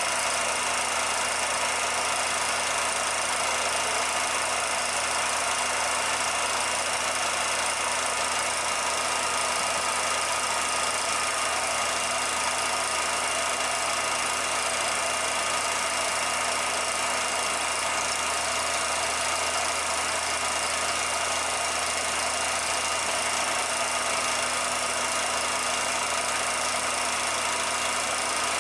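Steady mechanical running noise with hiss, typical of a 16mm film projector running while a silent film is transferred. The level and tone stay even throughout, with no sound from the steam locomotive itself.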